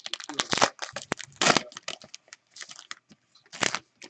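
Crinkling and crumpling of a plastic trading-card pack wrapper being handled and torn open, in a run of irregular crackles, loudest about a second and a half in and again near the end.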